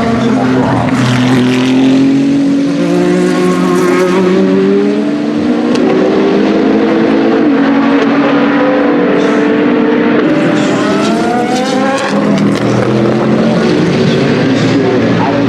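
Several GT3 race cars driving past at speed, their engines rising in pitch in steps as they accelerate and shift up through the gears. The exhausts run through 100 dB-limited mufflers.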